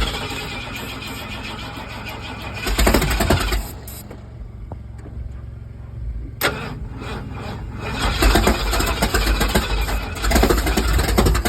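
A truck engine being cranked over by its starter in bursts: one short burst about three seconds in, a sharp click a few seconds later, then a longer, louder spell of pulsing cranking from about eight seconds on. These are start attempts while the engine's timing is being adjusted.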